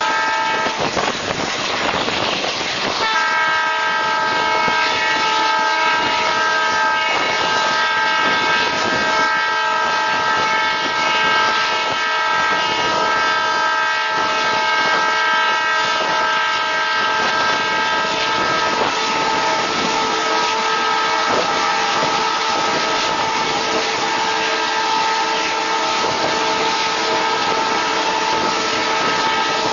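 Express train running at speed, heard from an open coach door: wheel and wind rush with some clickety-clack of wheels on rail joints. A diesel locomotive horn sounds long, steady notes from about three seconds in, and the pitch shifts lower about two-thirds of the way through as a goods train runs by on the next track.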